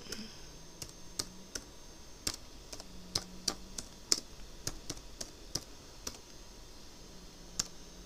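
Typing on a laptop keyboard: about fifteen separate keystrokes with uneven gaps as a search query is entered and submitted.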